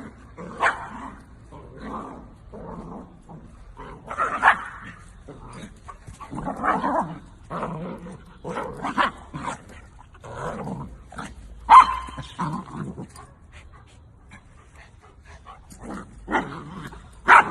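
A dog barking and vocalizing in a long, irregular run of short sounds, with sharper, louder barks about twelve seconds in and again at the very end.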